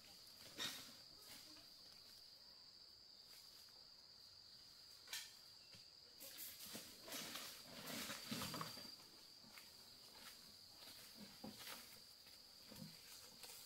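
Faint, steady high-pitched drone of insects, with two sharp knocks about half a second and five seconds in and a patch of irregular rustling and knocking from about six to nine seconds in.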